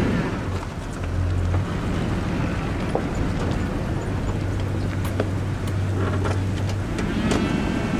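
Wind rumbling on the microphone over a low, steady engine hum that drops out for short moments now and then, with a few faint ticks.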